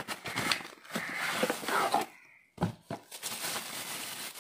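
Cardboard product box being opened and handled, rustling with a few sharp knocks, then a clear plastic bag crinkling as the wrapped stainless steel flask is drawn out of it.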